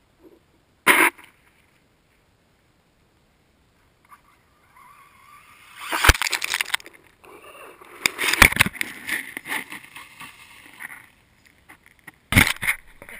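Close-up handling and slushy snow noise on an overturned RC buggy's onboard camera: a short knock about a second in, then irregular wet sloshing and scraping that peaks twice. Near the end come loud knocks and rubbing as the buggy is picked up by hand.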